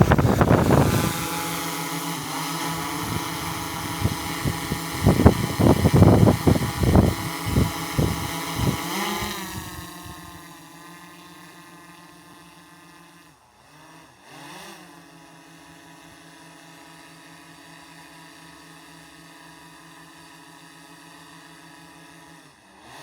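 Small DJI quadcopter drone's propellers whining just after spinning up, loud and gusty with propeller wash hitting the microphone during lift-off. After about ten seconds it drops to a quieter, steady hovering whine of several tones as the drone climbs away, dipping briefly in pitch twice.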